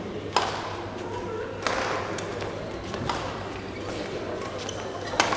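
Badminton rackets striking the shuttlecock in a doubles rally, four sharp hits about a second or so apart, each echoing in a large sports hall.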